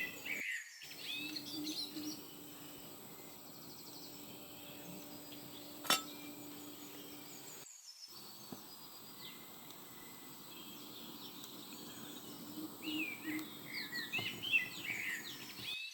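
Small birds chirping in short bursts, mostly in the last few seconds, over a faint steady outdoor background. A single sharp click comes about six seconds in.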